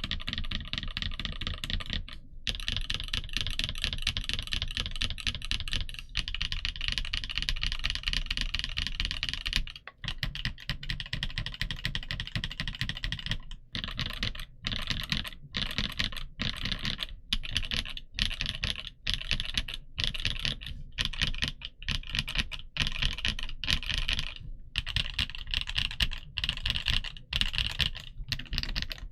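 Typing on a Tiger Lite Gaming V2 mechanical keyboard with Gateron Smoothie linear switches and Domikey keycaps. Fast, continuous keystrokes give way about halfway through to short bursts of typing with brief pauses between them.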